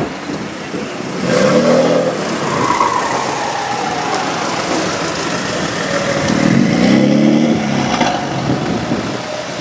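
Tuned BMW M2 Competition's twin-turbo straight-six running through a loud Remus exhaust, accelerating hard in two bursts, about one and a half and seven seconds in, with a falling pitch between them.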